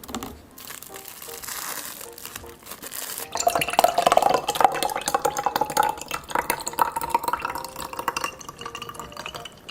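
A drink being stirred and poured in a glass: liquid splashing and dripping, with dense clinks against the glass through the middle, thinning out near the end.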